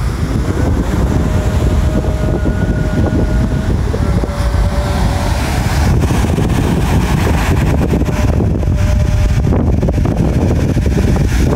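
Wind buffeting the microphone in a steady low rumble, over the rush of waves breaking on a sandy beach.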